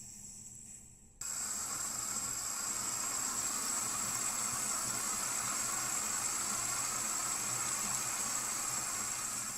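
Sink faucet turned on about a second in, then tap water running steadily into the sink.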